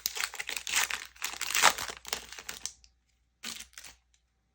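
Foil wrapper of a Pokémon TCG booster pack crinkling as it is handled and opened, in a steady stretch for about three seconds and then one short crinkle near the end.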